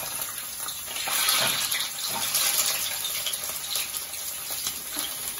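Whole boiled eggs frying in hot mustard oil in a kadhai: a steady sizzling hiss with frequent small crackling pops.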